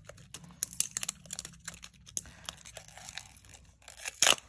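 Masking tape and paper being handled, peeled and torn: a run of small crackles and rustles, with a sharper snap about four seconds in.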